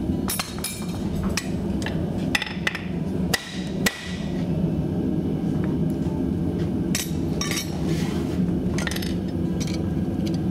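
Hammer blows on a steel horseshoe against an anvil: a series of irregular, sharp metallic clanks, each ringing briefly, as the farrier shapes and flattens the shoe.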